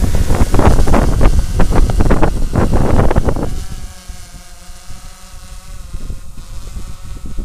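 DJI Phantom 3 Professional quadcopter taking off close by: its propellers' steady whine under heavy gusty buffeting of the microphone as it lifts past low overhead. About three and a half seconds in the buffeting stops and the whine goes on quieter as the drone climbs away.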